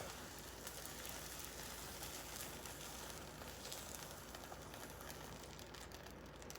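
Faint, steady sizzling and crackling of a hot frying pan on the stove.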